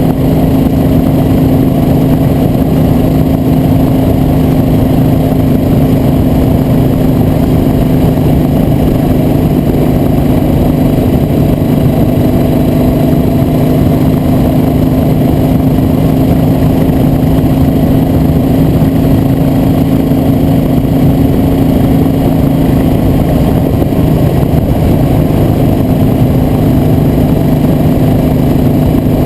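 Motor vehicle engine running at a steady cruising speed, a constant drone with a rushing road and wind noise underneath.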